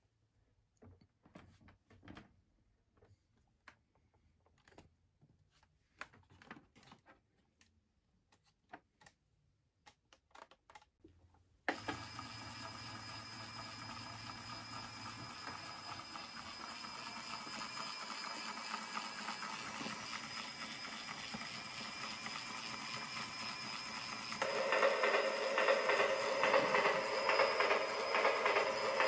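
Scattered light clicks and taps of the lamp being handled, then about 12 s in the Lionel Hudson 700E animated train lamp's built-in train sound effect starts suddenly when its front button is pressed. The train sound grows gradually louder, and a louder, brighter layer joins about 25 s in.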